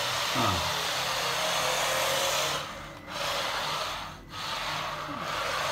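Kyosho Mini-Z AWD RC drift car's small electric motor and drivetrain whirring as it drifts, its tyres sliding on a laminate floor. The whir dips briefly twice, a little past halfway and again about three-quarters through.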